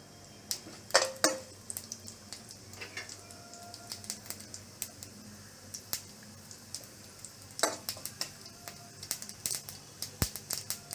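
Mustard seeds and urad dal spluttering in hot oil in a pan: scattered sharp pops that come thicker and faster toward the end, with a few louder clinks of a utensil against the pan.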